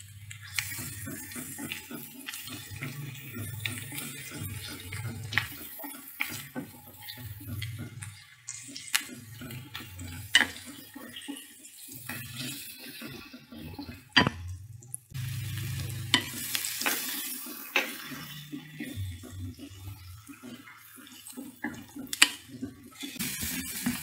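Wooden spatula stirring and scraping tempoyak and blended chilli paste as it fries in oil in a white ceramic dish, with repeated sharp knocks of the spatula against the dish over a light sizzle.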